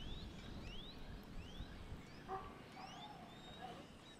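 Animal calls: a series of short rising whistles, roughly two a second, with a few lower, held calls in the middle, over a soft low rumble that fades about halfway through.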